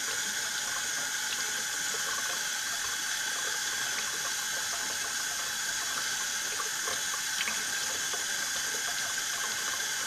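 Kitchen faucet running steadily into a stainless steel sink, the stream splashing over hands and a pistol barrel held under it.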